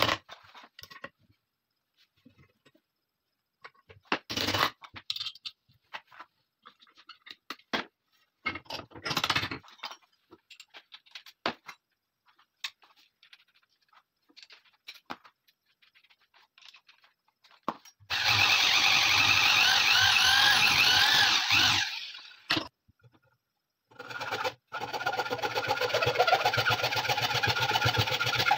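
Small knocks and clicks of tools and a bench vise being handled, then an electric power tool running twice, for about four seconds and then about five seconds, its pitch wavering under load.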